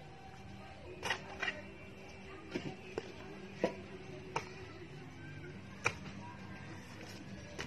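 Sharp chops of a long-handled hoe striking weeds and dirt, about seven irregular strikes spread over several seconds.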